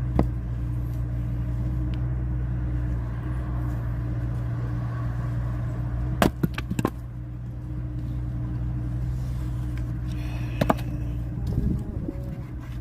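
Firewood being split over the steady drone of an engine running: a sharp crack right at the start, a quick cluster of three or four cracks about six seconds in, and two more near the end.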